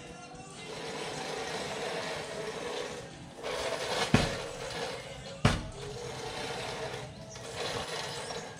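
Manual push reel mower whirring as it is pushed through long grass, pausing briefly as the strokes change direction. There are two sharp knocks about a second and a half apart near the middle.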